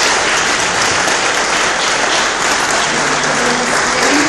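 Audience applauding steadily with a few cheers and shouts mixed in.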